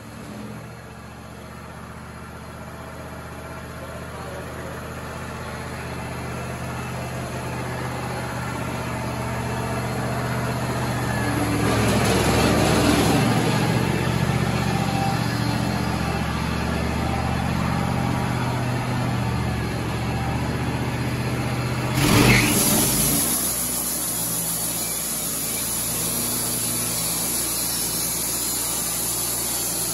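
Wood-Mizer LT35 portable sawmill's engine running steadily, growing louder over the first dozen seconds. About 22 seconds in there is a brief loud rush, after which the engine note is quieter.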